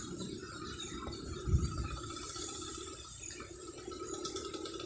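Water sloshing around a person wading in a canal, with one louder low thump about a second and a half in.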